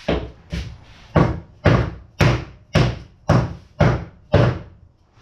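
Rubber mallet striking a camshaft, driving its bearing home: about nine sharp, evenly spaced knocks, roughly two a second. The bearing is going on without trouble.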